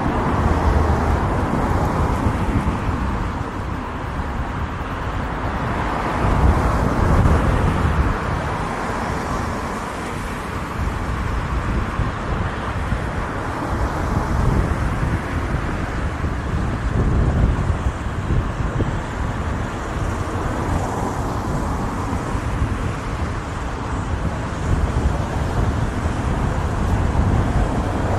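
Inline skate wheels rolling on pavement, a steady rumble that swells and eases, mixed with the noise of road traffic.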